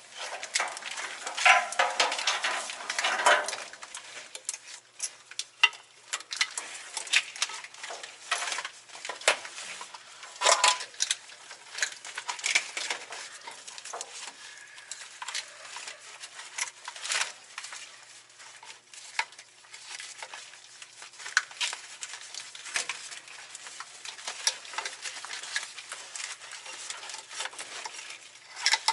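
Wiring harness being handled and repositioned: scattered irregular clicks, rustles and light knocks, busiest in the first few seconds.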